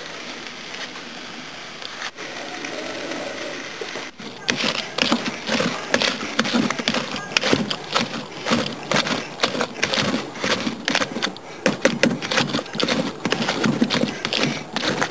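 Metal spoon mashing grill-roasted tomatoes and chiles in a plastic bucket: rapid, uneven knocks of the spoon against the bucket mixed with wet squelches, starting about four seconds in after a steady hiss.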